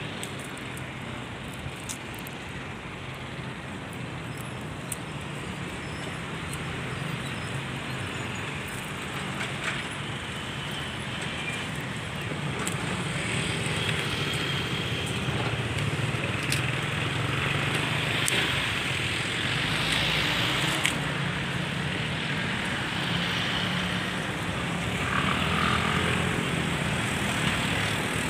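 Airliner jet engine noise: a steady rumble and hiss that slowly grows louder over the second half.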